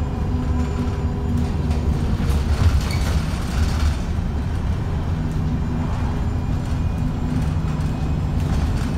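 Alexander Dennis Enviro350H hybrid bus running on the move, heard inside the saloon: a steady low engine drone with a pitched hum that fades about two seconds in and comes back around five seconds in, with rattles from the bodywork. The engine is the one the uploader calls unhealthy.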